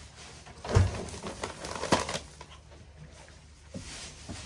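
Groceries being handled and unpacked from a foil-lined insulated cooler bag. A dull thump comes about a second in and a sharper knock about two seconds in, with rustling of packaging and the bag in between.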